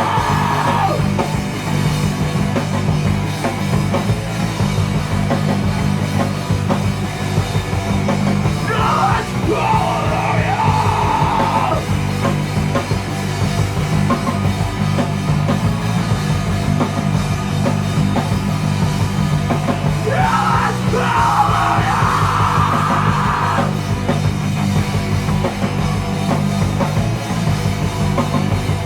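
Hardcore punk band playing loud and fast, with distorted guitars, bass and drums. Shouted vocals come in twice, about nine seconds in and again about twenty seconds in.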